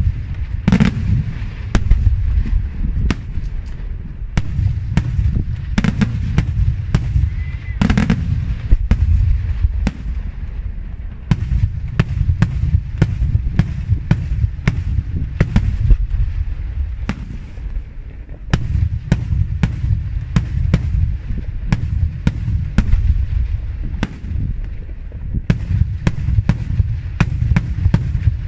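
Daytime aerial fireworks shells bursting into smoke: a dense, irregular barrage of sharp bangs over a continuous low rumble. The bangs thin out briefly about two-thirds of the way through, then pick up again.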